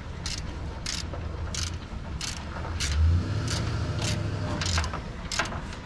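Socket ratchet being worked back and forth on a rusted 9/16 bolt, a short burst of ratchet clicks about every two-thirds of a second, over a low steady rumble.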